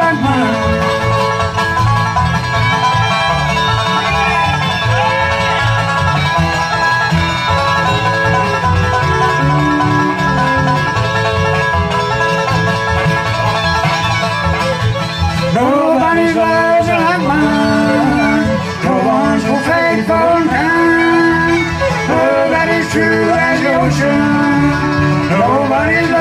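Bluegrass band playing an instrumental break on fiddle, banjo, acoustic guitar and upright bass, with a bending melodic lead line in the second half.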